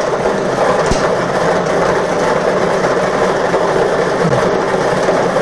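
Lottery ball draw machine running with a steady noise as the numbered balls clatter around inside its clear chamber, with one sharp click about a second in.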